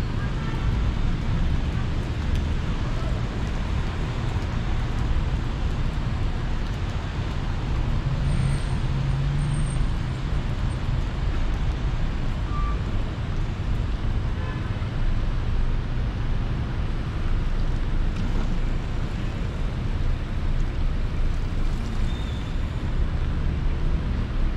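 Steady city street traffic: a continuous low rumble of passing vehicles, with an engine hum standing out briefly about eight seconds in.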